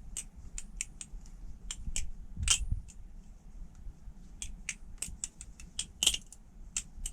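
Irregular light metal clicks and taps of a Squid Industries Triton balisong being handled, its handles knocking against the tang pins and each other. The clicks come scattered, a little louder about two and a half and six seconds in.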